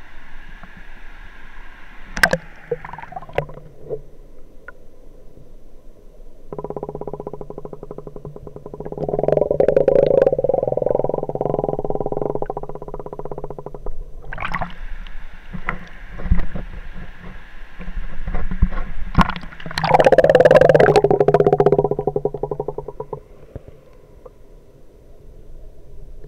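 Water churning and gurgling, heard dull and muffled through an action camera's waterproof case, with a few sharp knocks against the case. It swells twice to a louder, dense rushing, in the middle and again near the end.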